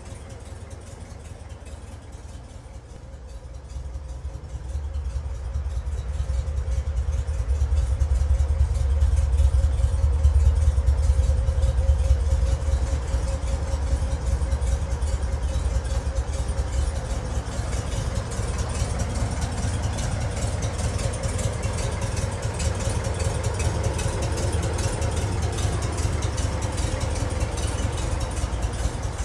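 1969 VW Type 2's 1500cc air-cooled flat-four engine idling steadily, growing louder over the first several seconds and then holding even.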